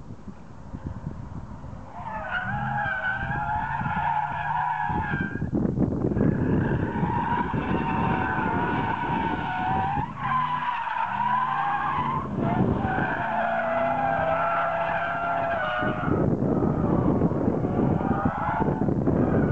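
Chevrolet Camaro SS drifting: its tyres squeal in long, wavering screeches, broken by a few short gaps, starting about two seconds in. Its 6.2-litre V8 runs hard underneath.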